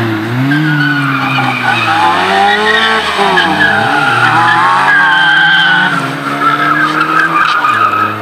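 Autobianchi A112 and VW Lupo hatchbacks driven hard around a tight circuit: engines revving up and down several times with gear changes, and tyres squealing through the corners, the squeal strongest in the second half.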